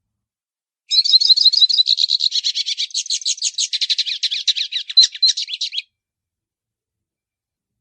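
Pintassilgo (Brazilian siskin) singing one long, rapid twittering song of many quick high notes. It starts about a second in and stops after about five seconds.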